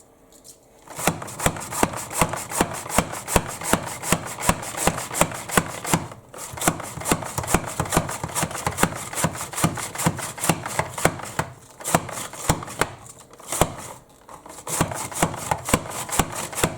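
Manual vegetable chopper repeatedly striking down through cabbage, fennel and carrot, about two sharp chopping strikes a second, pausing briefly a few times.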